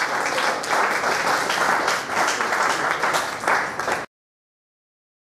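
Audience applauding, a dense patter of many hands clapping, which cuts off abruptly about four seconds in.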